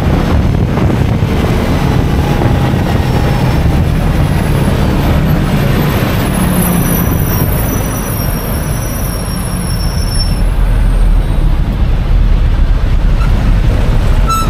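Riding a motor scooter in traffic: steady engine and wind rumble on the onboard microphone, easing slightly about eight seconds in and picking up again. Faint thin high squeals sound about six to eleven seconds in.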